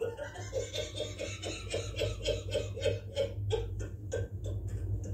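A woman laughing in a long run of quick, evenly spaced 'ha' pulses, about four a second, dying away near the end.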